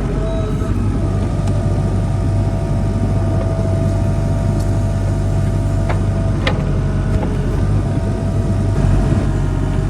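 Engine of heavy equipment running steadily, with a steady whine over its low hum and two sharp clicks about half a second apart about six seconds in.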